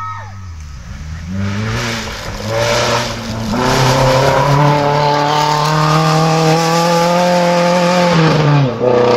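Suzuki Swift rally car at full throttle on a loose gravel stage, with the noise of its tyres on the gravel. The engine revs climb over the first few seconds, hold high and steady as it comes through the corner, then drop sharply near the end.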